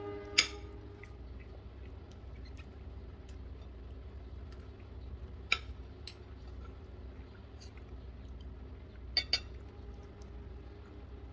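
A metal utensil clinking against a ceramic plate during a meal: one sharp ringing clink about half a second in, another around the middle, and a quick double clink near the end.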